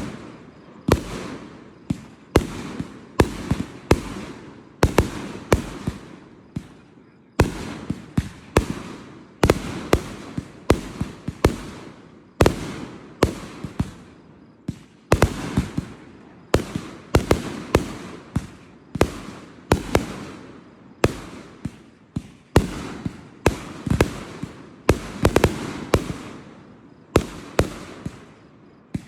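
Aerial fireworks going off in quick succession: a continuous barrage of sharp booms and cracks, often several a second, each followed by a rumbling echo.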